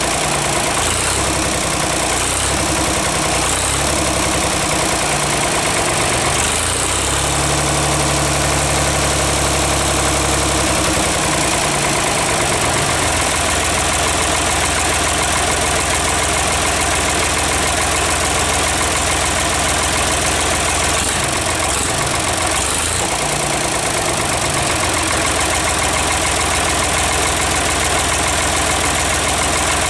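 1966 Ford 4000's three-cylinder diesel engine running on its own, out of the tractor, at a steady idle. Its note shifts up for a few seconds about seven seconds in, then settles back.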